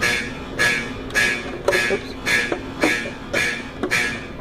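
School fire alarm horns sounding in a steady pulsing pattern, close to two blasts a second. Each blast trails off in echo.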